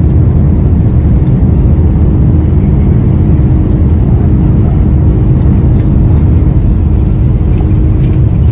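Rolls-Royce Trent 700 turbofans of an Airbus A330 at takeoff or climb thrust, heard inside the cabin: a loud, steady deep rumble with a steady hum.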